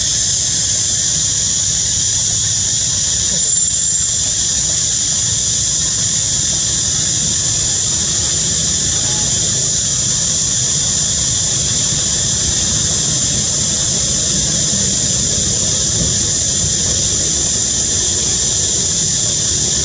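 Steady, high-pitched drone of insects calling in chorus, unchanging throughout, over a low rumble.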